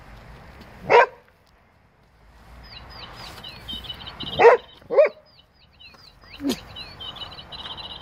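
A dog barks a few times at a motion-sensor toy bird, which answers with a repeating electronic birdsong of high chirps and trills starting about two and a half seconds in.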